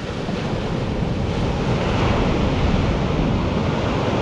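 Ocean surf washing onto the beach, swelling over the first second or so and then steady, with wind buffeting the microphone.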